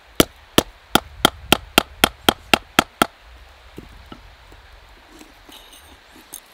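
Hand hammer striking a mild-steel belt buckle held in tongs on a small stake anvil. About eleven quick, sharp metallic blows come at roughly four a second and stop about three seconds in, followed by a few faint knocks.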